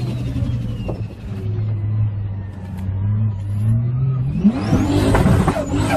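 Turbocharged car engine idling while the turbo's high whine slowly winds down. About four seconds in, the engine revs up hard and the turbo whistle climbs with it as it spools.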